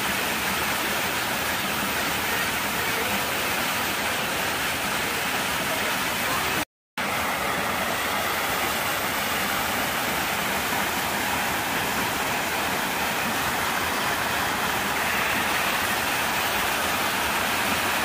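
Steady rushing of running water. The sound cuts out completely for a moment about seven seconds in, then resumes unchanged.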